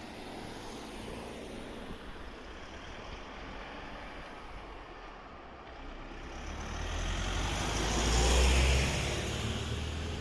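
A road vehicle drives past over steady background traffic noise. It grows louder from about six seconds in, is loudest at about eight and a half seconds with a deep rumble, then fades.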